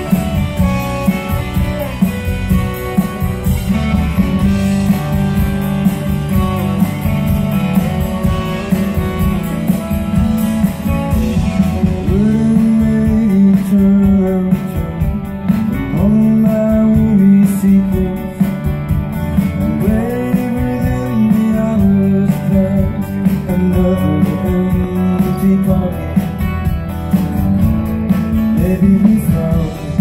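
A live band playing a mid-tempo rock song with guitars and drums, recorded from the audience. A man's singing voice comes in over the band about twelve seconds in, accompanying himself on acoustic guitar.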